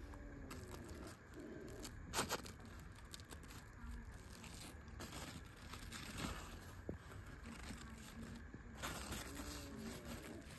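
Large pumpkin leaves rustling and brushing as a hand parts them, faint overall, with short louder rustles about two seconds in and again around nine seconds in.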